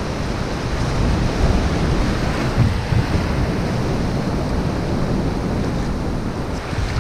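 Ocean surf washing up and running back over a sandy beach, with wind buffeting the microphone.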